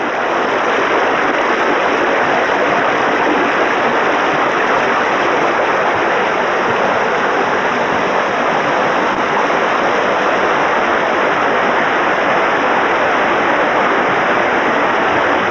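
Small creek rushing over rocks in rapids: a steady, even rush of white water.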